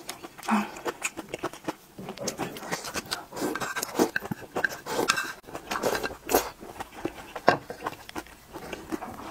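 Close-miked slurping of spicy noodle soup from a spoon, with wet chewing and lip smacks in quick irregular clicks.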